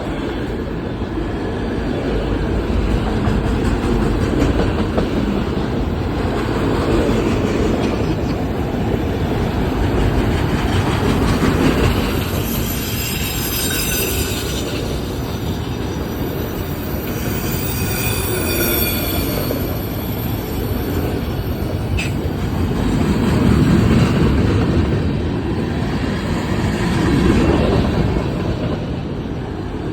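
Freight train cars rolling past with a steady rumble of wheels on the rails. Shrill wheel squeal rises over it twice, around the middle.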